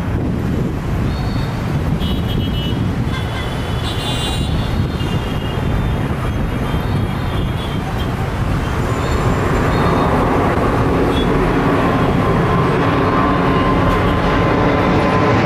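Boeing 787 Dreamliner's turbofan engines at take-off power: a steady low rumble as the airliner rolls and lifts off, growing louder with a whining engine tone coming in about ten seconds in as it climbs out overhead.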